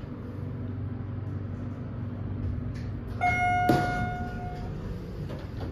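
Schindler 300A hydraulic elevator running with a steady low motor hum. About three seconds in, its chime rings once and fades, with a sharp click just after.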